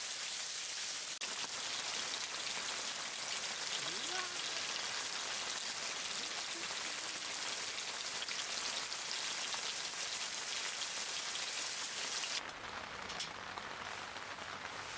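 Steady rain falling, a dense even hiss of drops. It drops off abruptly about twelve seconds in to a quieter background with a few light clicks.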